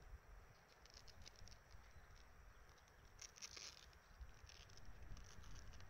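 Near silence: a low background rumble with faint clusters of light ticking or rustling about a second in and again past the three-second mark.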